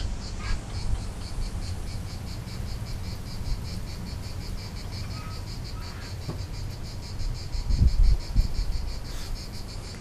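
Insects chirping in a steady, even rhythm. Low rumbling thumps are heard about eight seconds in.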